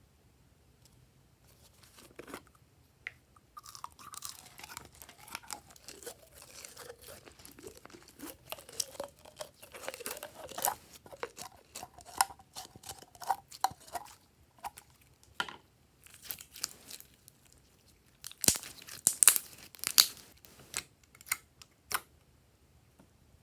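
Hands squishing, pressing and stretching slime, giving an irregular run of sticky crackles, clicks and pops. The loudest burst of crackling comes about three quarters of the way through.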